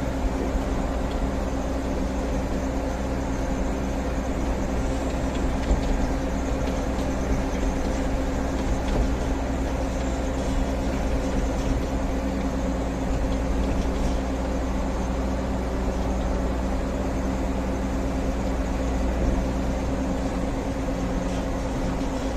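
Heavy road-building machinery engine running steadily at constant speed: an even, unchanging drone with no revving.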